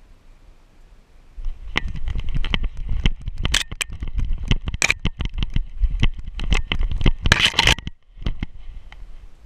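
A dog bounding through snow, heard through a camera mounted on its back: dense, irregular knocks, crunches and clatter of paws and body jolting the mount, over a low rumble of handling on the harness. It starts about a second and a half in, breaks off just before the end and resumes more softly.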